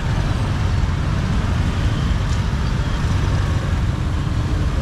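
Motor scooter engine running at low speed in slow stop-and-go market traffic, a steady low rumble with other motorbikes around.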